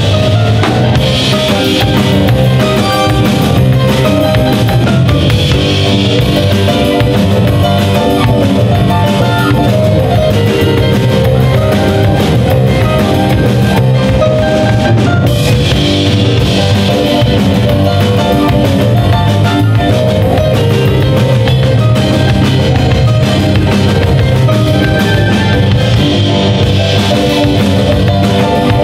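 Live rock-and-blues band playing an instrumental passage: a drum kit, electric guitar, bass guitar and stage piano, all playing together and loud.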